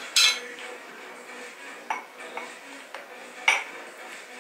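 Dishes and cutlery being handled in the kitchen, clinking and clattering: a sharp clatter just after the start, a few lighter knocks, and another loud clink about three and a half seconds in.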